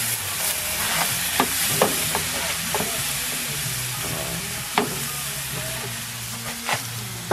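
Pieces of lamprey sizzling as they are seared in hot oil in a frying pan just flambéed with cognac, stirred with metal tongs. A few sharp clicks of the tongs against the pan punctuate the steady sizzle.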